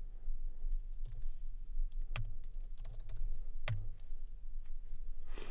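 Computer keyboard typing: scattered key clicks, with two louder strikes around the middle.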